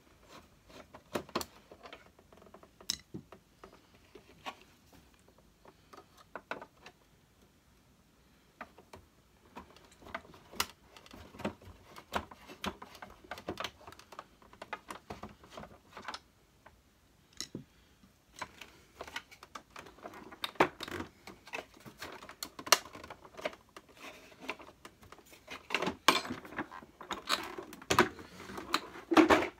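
Irregular clicks, taps and clatter of a screwdriver working at the plastic casing of a Hoover Turbo Power UB088 upright vacuum cleaner, with a few quiet pauses. The knocks get busier and louder in the last third as the vacuum's body is handled.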